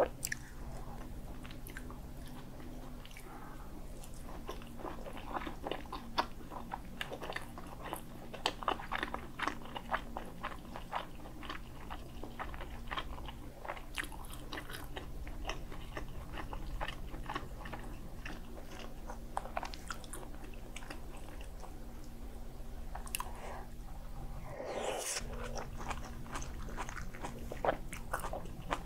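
Close-miked mouth sounds of a person chewing food, with many small wet clicks and smacks. About 24 seconds in there is one brief louder noisy sound.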